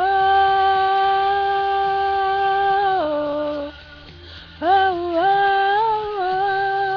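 A woman singing long wordless held notes over a faint backing track. One note is held for about three seconds, then steps down, and after a brief lull she swoops up into another sustained phrase.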